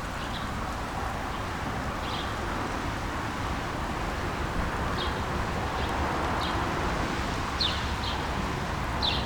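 Short, high bird chirps every second or two, growing more frequent near the end, over a steady hiss of rain with traffic in the background.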